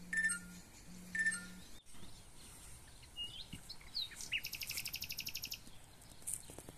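Songbirds chirping: clusters of short high calls in the first second and a half, then scattered chirps and, about four and a half seconds in, a fast high trill lasting just over a second.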